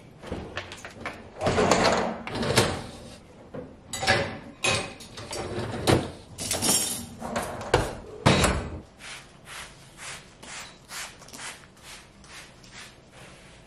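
Dishes and racks clattering as a kitchen dishwasher is loaded, with sharp clacks of crockery and metal racks sliding. In the last few seconds this gives way to softer knocks about twice a second.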